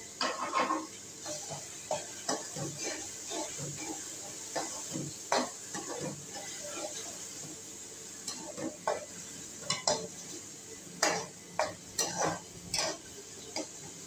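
Perforated steel spoon stirring and scraping an onion-tomato masala in a metal pan, with irregular scrapes and knocks against the pan over a steady sizzle of frying in oil. The strokes grow louder and closer together in the second half.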